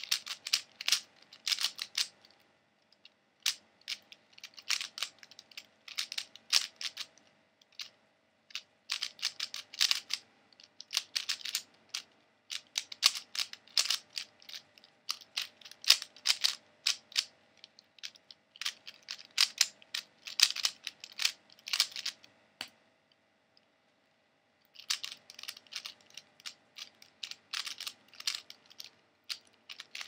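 Dayan Zhanchi 3x3 speedcube being turned fast by hand: bursts of rapid plastic clicking and clacking as the layers snap round, broken by short pauses. There is one silent gap of about two seconds a little past two-thirds through.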